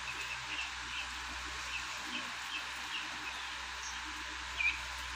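A flock of 12-day-old chicks peeping: short high chirps every fraction of a second, with a louder one near the end, over a steady hiss.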